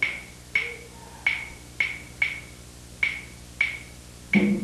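A single percussion part played with sticks: eight sharp clicks, each with a short high ring, in an uneven repeating rhythm of about two strokes a second.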